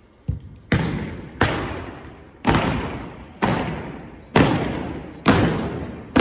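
A drill team's heel stomps struck in unison on a wooden gym floor: about seven sharp strikes, roughly one a second, each ringing off in the hall's echo.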